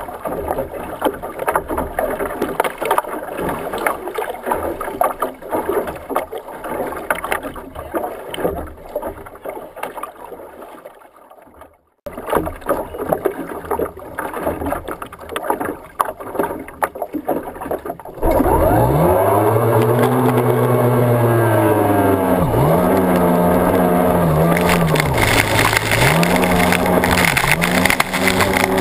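Water slapping and splashing against a racing boat's hull, with wind on the microphone, for the first two-thirds. Then the OSY-400 class racing outboard comes in suddenly, climbs in pitch as the boat accelerates, and runs loud at full throttle, its pitch dipping and recovering several times.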